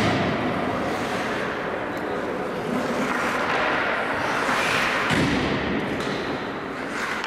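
Ice hockey rink noise during play: a steady rush of sound from the ice, with a sharp knock at the very start and a heavier thud about five seconds in.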